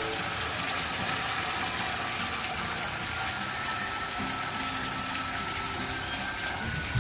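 A steady stream of water running from a PVC pipe tap and splashing into a bucket.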